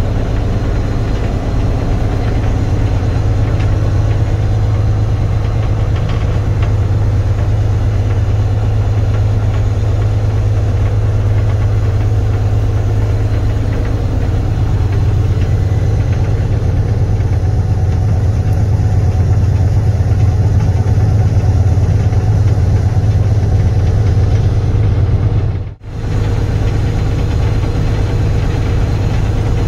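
Shunting locomotive U6's diesel engine idling steadily with a deep, constant hum, heard from inside its cab while it waits for clearance to shunt. The sound briefly drops out once near the end.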